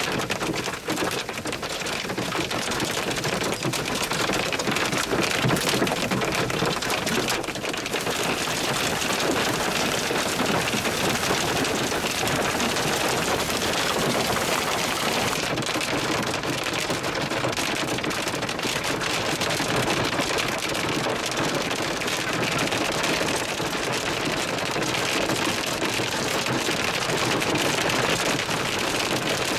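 Hail falling with rain, a dense, continuous clatter of countless small rapid impacts.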